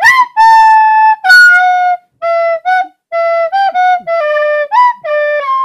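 Solo flute melody: a tune of short and held single notes with brief pauses, opening with a quick upward slide.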